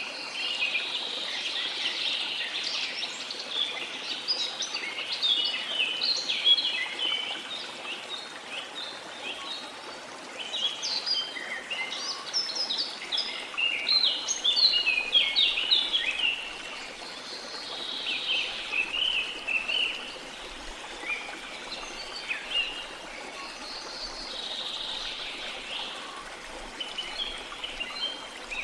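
Small songbirds chirping and twittering in a dense, busy chorus that thins out a couple of times, over a steady hiss of sea water.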